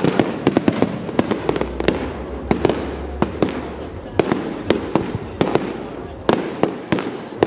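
Fireworks display: an unbroken, irregular run of sharp bangs and crackles, several a second, over a continuous low rumble.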